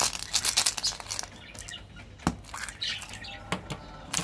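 Plastic candy surprise ball being pried open in the hands: a run of light clicks and crackles, with one sharper snap a little over two seconds in.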